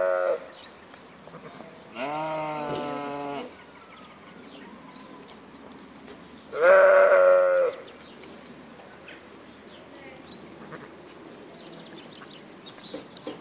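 Sheep bleating: the end of one call right at the start, a lower-pitched bleat about two seconds in, and a louder bleat about seven seconds in.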